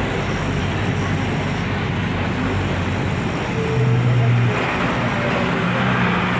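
City road traffic: a steady din of vehicle engines and tyres, with a louder engine note swelling briefly about four seconds in.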